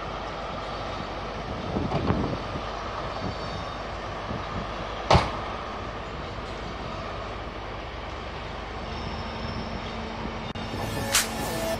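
A locomotive running in the distance as a steady rumble, with a few knocks about two seconds in and a sharp click about five seconds in.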